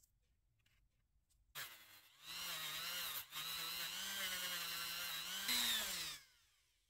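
Small handheld rotary tool running with a wheel pressed against the teeth of a small steel bevel gear, cleaning them bright. It starts about a second and a half in, hums steadily with a slight wavering under the load, drops out briefly once, then rises a little and spins down about a second before the end.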